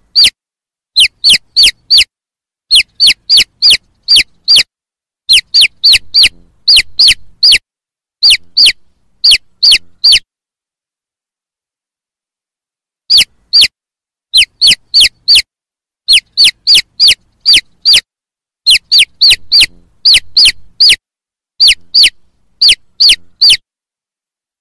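Chicks peeping: loud, short calls that each fall steeply in pitch, given in quick runs of two to four, with a pause of about three seconds near the middle.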